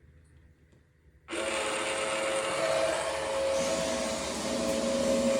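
Regeneration discharge from an Ecosoft water treatment unit: about a second in, water suddenly starts rushing down the drain line into a McAlpine siphon. It goes on as a steady loud rush with a whine running through it.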